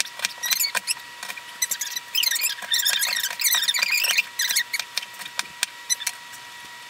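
Chef's knife slicing and dicing a red onion on a cutting board: sharp knocks of the blade on the board, with squeaky crunching as the blade goes through the onion's layers, densest and quickest in the middle.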